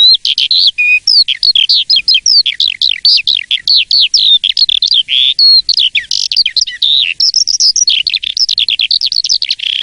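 Asian pied starling (jalak suren) singing a long, unbroken song of rapid, varied whistles and chirps, many notes sliding down in pitch, with a couple of harsh rasping notes about five and six seconds in.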